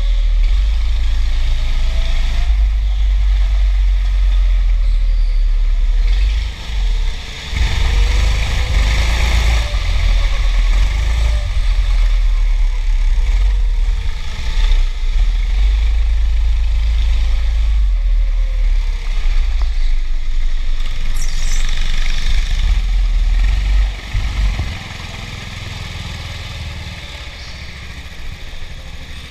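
Go-kart motor running under hard driving, its pitch rising and falling through the corners, over a heavy low rumble from the kart shaking the camera. It drops briefly twice about a third of the way in, and the whole sound falls away over the last few seconds.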